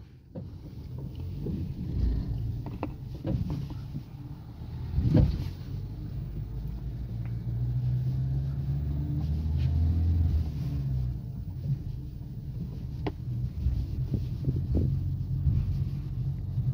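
Low steady rumble inside the cabin of a car being towed with its own engine off: road noise and the tow truck running just ahead, swelling briefly partway through, with a few sharp knocks and rattles.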